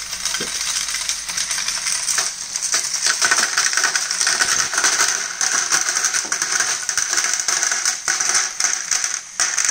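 Many loose plastic Lego pieces clattering and rattling continuously as motor-driven Lego conveyors carry them along and tip them onto a sorter.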